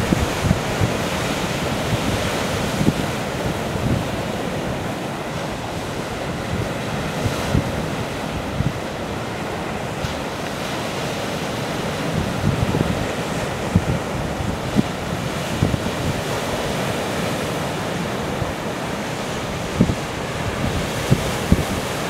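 Sea surf breaking and washing in steadily over a black volcanic rock shore, with wind gusting on the microphone in short low rumbles throughout.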